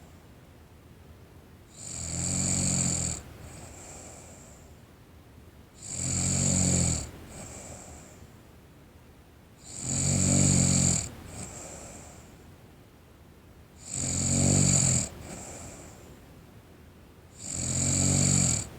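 A sleeping teenage girl snoring in a slow, regular rhythm: five loud snores about four seconds apart, each followed by a softer breath.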